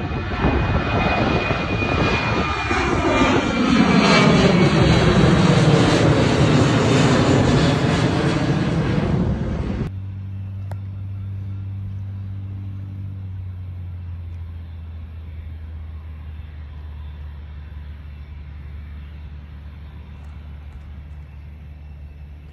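Twin-engine jet airliner climbing out after takeoff: loud engine noise with sweeping shifts in tone, swelling to its loudest around the middle and cut off abruptly about ten seconds in. After that, a much quieter steady low hum, slowly fading, from a distant airliner on the ground.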